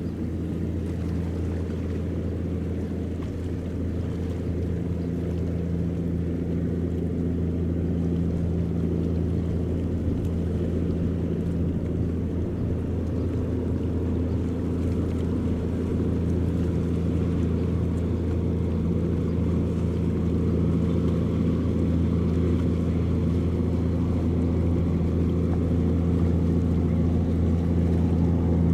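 Ferry's engine running steadily: a low hum with several steady tones, slowly getting louder.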